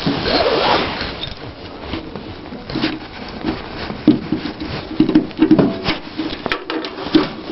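Scattered clicks, knocks and rustling of something being handled, with no engine running.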